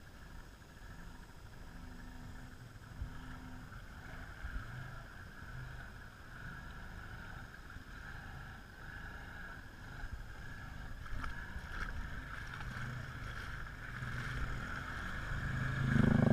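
ATV engine running low in deep muddy water, getting louder toward the end and rising sharply as the quad pulls away through the water, with splashing.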